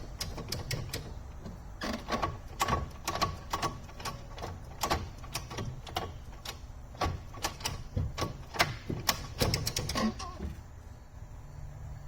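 Irregular sharp clicks and knocks of plastic and metal parts being handled during hand work on a car's gear shift linkage. The clicking stops about ten and a half seconds in.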